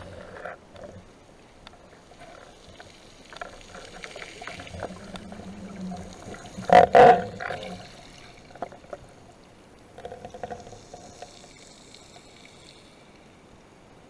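Underwater handling noise picked up through a camera housing mounted on a speargun: scattered clicks and knocks, with a loud double thump about seven seconds in.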